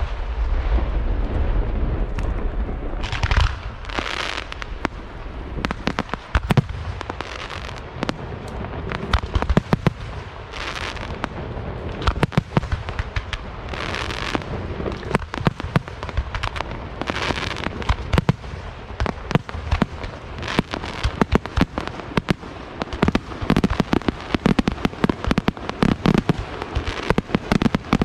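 Aerial fireworks display going off continuously: dense volleys of bangs and crackling, with a hissing wash that swells and fades every second or two, and a heavy low rumble of shell bursts at the start.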